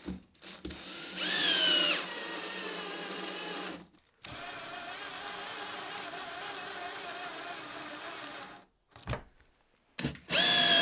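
Cordless drill driver driving screws through small plastic feet into a wooden block: the motor whines in separate runs, a loud one about a second in whose pitch sags before it settles, a long steady run through the middle, and another loud run starting near the end. A few short knocks come between the runs.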